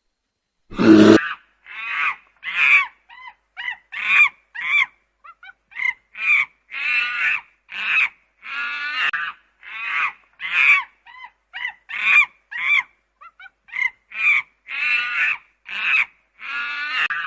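Geese honking: a long run of separate calls, some short and some longer, about one or two a second. A short low burst comes about a second in, before the calls start.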